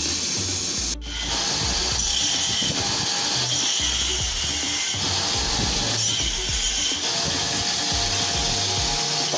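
Angle grinder running steadily against metal, a continuous grinding noise.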